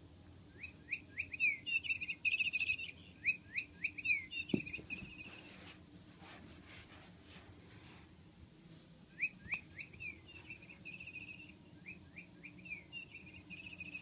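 Chirping toy bird, a cat's toy, giving two bouts of rapid repeated chirps. The first bout stops about five seconds in and the second starts about nine seconds in. A single small knock comes midway.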